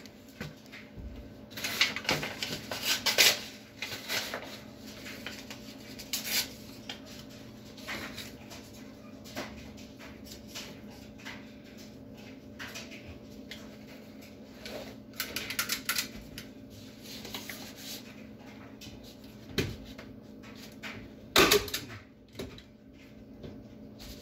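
Brown paper and plastic sheeting being handled and folded, crinkling and rustling irregularly. A hand staple gun fires with a couple of sharp clicks about three seconds before the end, driving staples through the paper and plastic into the ceiling.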